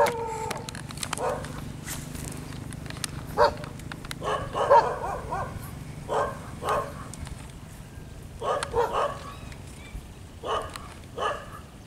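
Animal calls: short pitched calls, about ten of them in irregular clusters, over a low steady hum.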